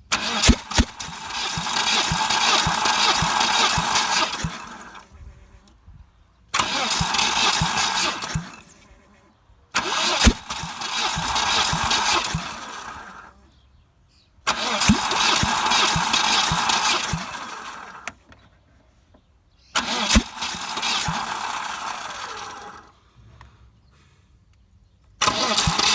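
Volvo B230F 2.3-litre four-cylinder engine cranked on the starter motor six times, each try two to four seconds long with short silent pauses between. Through each crank it coughs now and then as one cylinder, the second, fires, but the engine does not start.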